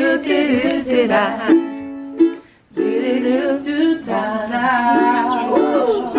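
Background music: a song with singing over an instrumental accompaniment, which drops out briefly about two and a half seconds in.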